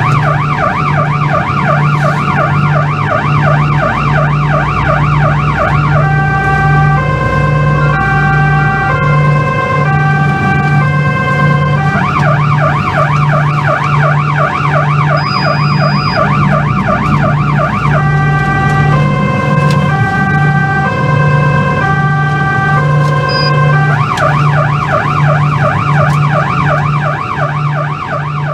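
Police van's electronic siren heard from inside the van, switching about every six seconds between a fast rising-and-falling yelp and a two-tone hi-lo, over a low pulsing hum.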